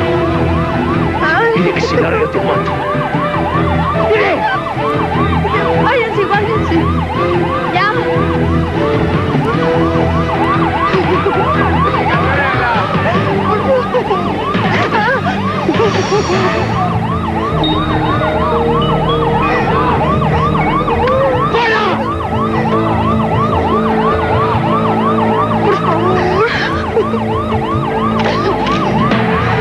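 An emergency-vehicle siren in a fast yelp, its pitch sweeping up and down about two to three times a second without a break, over steady held low tones.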